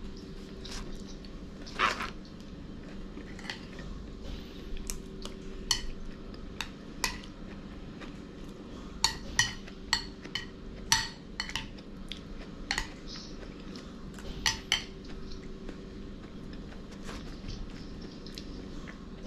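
Metal fork clinking and scraping against a ceramic bowl while eating: many short, sharp clinks scattered irregularly, a few noticeably louder than the rest. A faint steady hum runs underneath.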